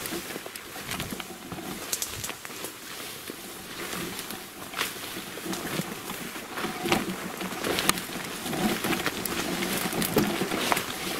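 Footsteps walking through dry leaves and underbrush, with many small crackles and snaps of twigs and brush.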